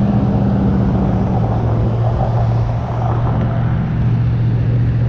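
Road traffic at a busy intersection: the steady low drone of car engines with tyre noise, one low engine tone holding steady while a second, higher one fades out after about a second.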